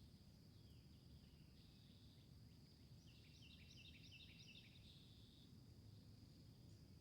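Faint songbird singing a quick run of repeated descending chirps, beginning about three seconds in, over a steady high insect buzz and a low background rumble.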